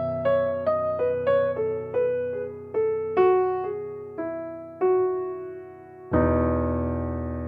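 Background music: an electric piano plays a slow melody of single struck notes over a held chord, with a fuller chord struck about six seconds in.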